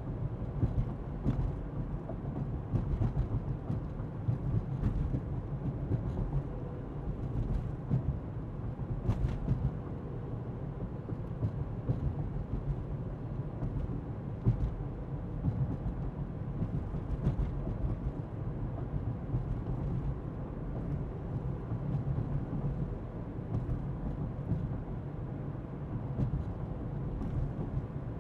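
Car interior while driving: a steady low rumble of tyres on the road and engine hum, with occasional small creaks and clicks from the suspension.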